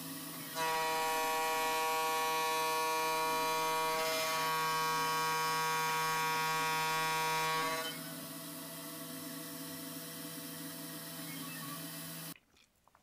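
Cheap CNC spindle running with an end mill in aluminium. It starts as a steady hum, and about half a second in it becomes a louder, pitched cutting tone with many even overtones, held for about seven seconds. It then drops back to the steady hum of the spindle running, which cuts off suddenly near the end.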